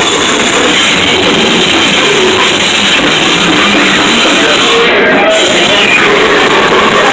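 Loud live noise-music performance: a dense, steady wall of sound with no clear pitch or tune. Its highest hiss drops out briefly about five seconds in.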